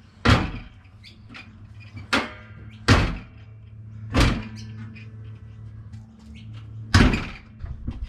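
Five sharp metal thunks at uneven gaps, a couple of them leaving a brief metallic ring, over a steady low hum: the Toyota Hilux's bonnet and its new gas strut being worked.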